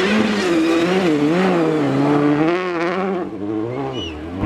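Citroën DS3 rally car's engine revving hard as it slides through a snowy corner, the revs rising and falling as the throttle is worked, then easing off about three seconds in.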